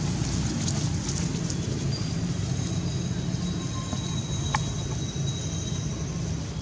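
Steady low rumble of outdoor background noise, with faint thin high tones held for a few seconds at a time and one sharp click about four and a half seconds in.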